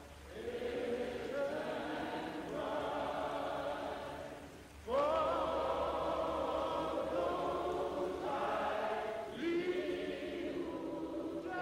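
Choir singing in long, held phrases. A new phrase comes in louder about five seconds in.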